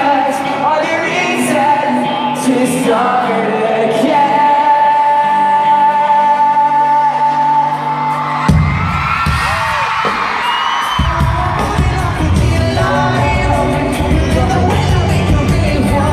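Live pop-rock band playing with a lead vocal in a large hall, with yells from the crowd. The full band, with heavy drums and bass, comes in about eight seconds in.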